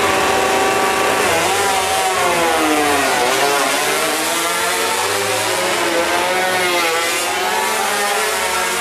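Several MotoGP racing motorcycles, 1000 cc four-stroke prototypes, revving hard as they launch from standstill in practice starts. Their engine notes overlap, falling and climbing again in pitch twice as the bikes shift and pull away.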